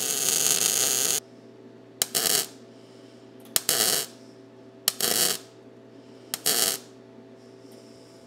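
Wire-feed (MIG) welder arc on a steel truck frame: a continuous bead stops about a second in, then four short stitch welds follow about every second and a half, each starting with a sharp pop. A steady machine hum runs underneath.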